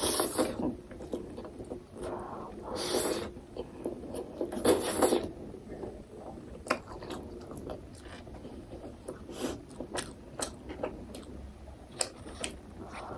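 Close-miked eating of instant ramen noodles: three long slurps in the first five seconds, then chewing with many short, quick mouth clicks.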